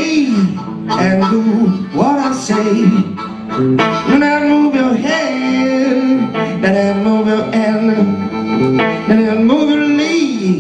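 Live blues: a semi-hollow electric guitar playing a rhythm accompaniment while a harmonica plays long held notes with bends over it.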